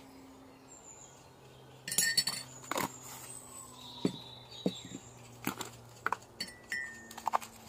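A metal spoon clinking against a ceramic mug, mixed with taps and knocks of plastic jars and lids being handled. About ten separate clinks and knocks, the loudest cluster about two seconds in.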